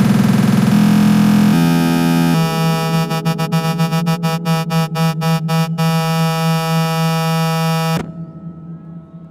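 Techno with no drums: a loud sustained synth chord steps down in pitch three times, then its upper part stutters with rapid cuts. The chord stops abruptly about eight seconds in, leaving a fading tail.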